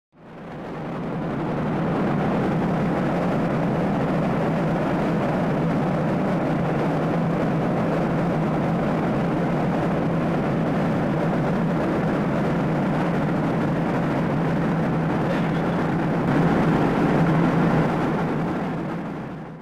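Jet airliner cabin noise in cruise: a steady rush of engines and airflow over a low steady hum. It fades in at the start and out at the end, and swells a little for a couple of seconds near the end.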